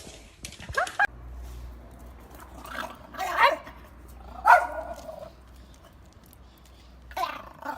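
An animal calling several times: short pitched cries that glide down in pitch, a second or more apart, over a low steady hum.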